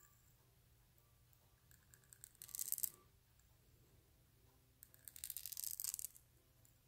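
Extra fine crow quill nib scratching across paper as it draws pen strokes: two faint, high scratchy passes, a short one a little over two seconds in and a longer one of over a second near the end.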